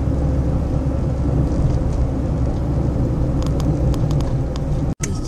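Steady low rumble of a car's engine and tyres on the road, heard from inside the cabin while driving. A few faint clicks come near the end, and the sound drops out for an instant just before the end.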